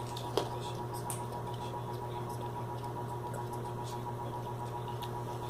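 Steady low hum with a faint high steady tone, broken by a single sharp click about half a second in and a few faint ticks.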